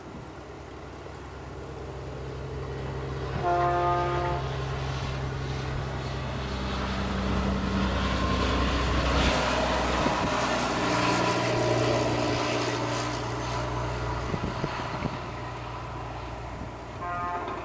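A heavy diesel vehicle passes, its engine rumble building and staying loud through the middle. A horn sounds for about a second around three and a half seconds in, and again near the end.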